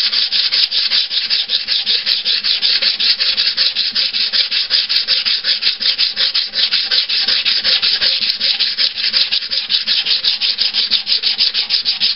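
Sandpaper, 150 grit, rubbed by hand over a coat of Bondo body filler in quick side-to-side strokes, about four a second: a steady scratchy hiss.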